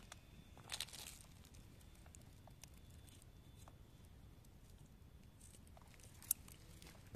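Scissors cutting denim fabric: quiet snips and cloth rustling, with a short burst about a second in and one sharp click about six seconds in.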